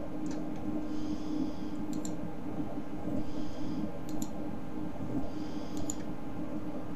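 Computer mouse clicks, each a quick double click (button down and up), about four times a couple of seconds apart, over a steady low electrical hum. A short, faint high tone recurs about every two seconds.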